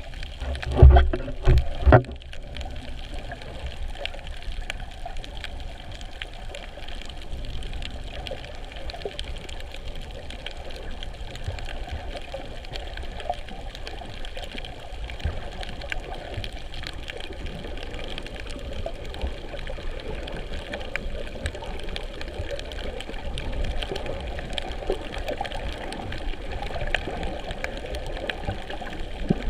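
Underwater water noise over a coral reef: a steady low wash dotted with fine crackling clicks, with a few loud low bumps and bubbling thumps about one to two seconds in.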